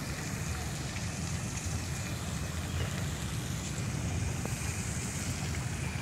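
Fountain jets spraying into an ornamental pool: a steady hiss of falling water, under a fluctuating low rumble of wind buffeting the microphone.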